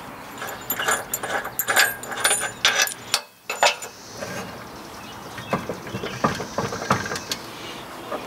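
Metal clinking and rattling as a Swagman bike carrier's steel hitch bar and fittings are worked into a trailer's receiver: a busy run of sharp clinks over the first few seconds, then a few fainter clicks later.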